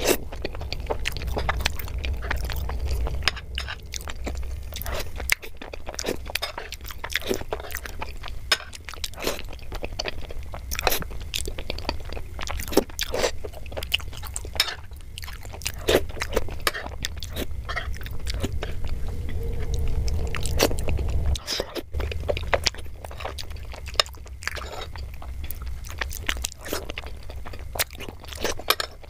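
A person eating soft, syrupy gulab jamun in creamy milk from a spoon: wet chewing, smacking and slurping mouth sounds, with irregular sharp clicks of a metal spoon against a glass bowl, over a steady low hum.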